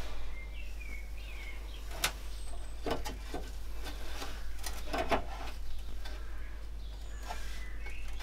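Handling noise from gloved hands fitting foam pieces into a classic Mini heater unit's casing: a few light knocks and clicks about two and three seconds in and a cluster around five seconds, over a steady low hum. A few short high chirps come near the start.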